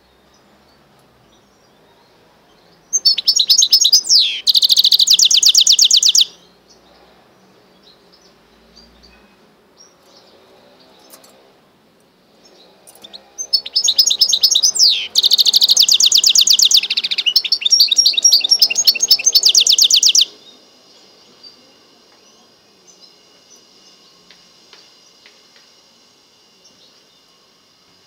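Goldfinch × canary mule singing in two loud bouts of rapid, high trills with whistled glides in pitch: a short phrase about three seconds in, then a longer song of about seven seconds starting around thirteen seconds in.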